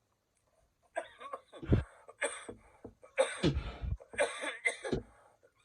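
A man coughing in a string of short, repeated coughs that starts about a second in: the lingering cough that he takes to be from allergies.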